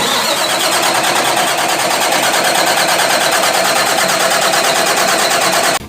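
Boat engine turning over on its starter in a long crank, a steady, rhythmic churn that cuts off suddenly near the end: a hard-starting engine that is slow to fire.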